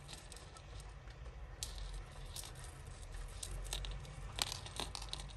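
Thin metal necklace chains clinking and rustling as they are picked apart by hand to undo a tangle. The light clicks grow thicker near the end, over a steady low hum.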